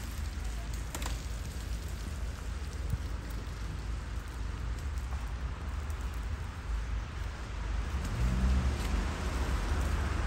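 Outdoor ambience of a wet, snowy street: a steady rain-like hiss with a low rumble underneath. It gets louder about eight seconds in.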